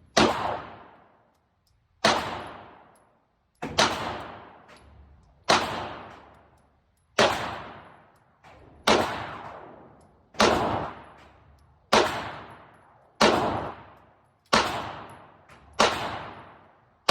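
Glock 19 9mm pistol firing single shots, about one every second and a half, each a sharp crack with a long echoing decay. A couple of fainter shots fall in between.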